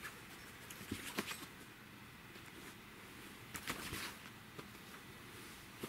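Rustling and scraping of a cat's clear plastic Elizabethan collar and a satin bedspread as the cat moves and pushes its head into the fabric: short crackly clusters about a second in and again past the middle, otherwise faint.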